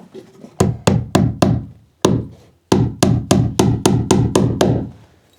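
A hammer driving nails into wood: about fourteen quick blows in two runs, a short pause after the first four, each strike ringing briefly.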